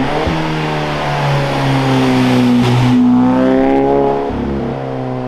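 Mazda 3 four-cylinder engine through a CorkSport cat-back exhaust, revs climbing sharply at the start, held and rising gently, then easing back down about four seconds in.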